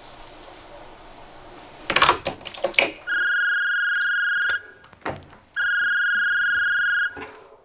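A mobile phone ringing: two long, steady electronic beeps about a second apart. A few knocks and rustles come just before the first ring.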